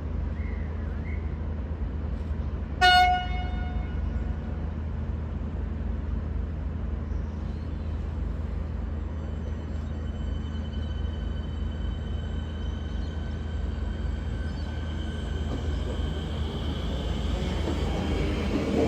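V/Line VLocity diesel railcar idling with a steady low rumble, and one short horn toot about three seconds in. A faint steady high whine creeps in halfway through and grows louder toward the end.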